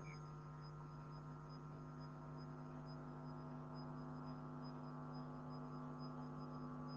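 Steady electrical hum, a low buzz with several overtones held at one pitch. No other sound stands out.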